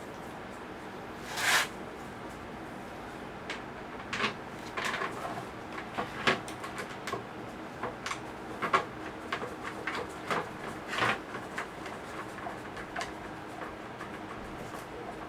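Hard plastic parts of a worm compost bin being handled as small bolts and wing nuts are fitted: one short scrape about a second and a half in, then a run of small irregular clicks and knocks that dies away near the end.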